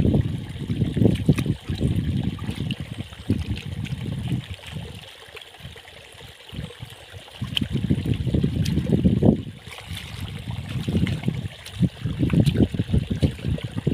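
Hands scooping and sloshing through shallow muddy water and mud, in irregular surges with a quieter lull about five seconds in.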